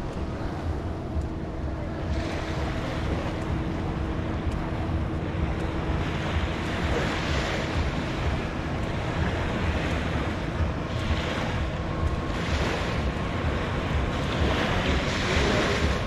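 Small waves washing onto a sandy beach, the surf hiss swelling and fading every couple of seconds, over a steady rumble of wind on the microphone.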